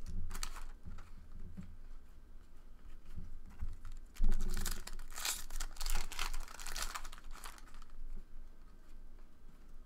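Trading cards being handled and flipped through by hand: cards sliding and flicking against each other, with crinkling from a foil pack wrapper. A thump comes about four seconds in, followed by a run of sharp rustles.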